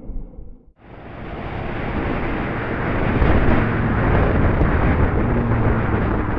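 Motorcycle riding at highway speed, heard through a helmet-mounted camera: wind rushing over the microphone over a low, steady engine hum. The sound drops out briefly just under a second in, then the wind rush builds up over about a second and holds steady.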